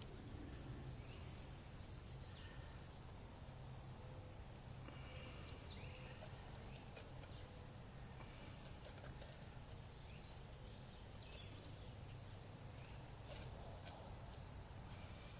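A steady, high-pitched chorus of insects droning without a break, with a few faint chirps over a low background rumble.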